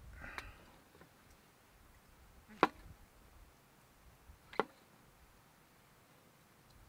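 Kitchen knife chopping down onto a cutting board: two sharp single strokes about two seconds apart, after a small clatter at the start.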